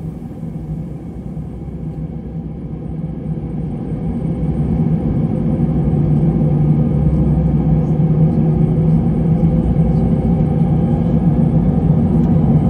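An airliner's jet engines spooling up for take-off, heard from inside the passenger cabin: a low, steady drone that grows louder a few seconds in and then holds at full power.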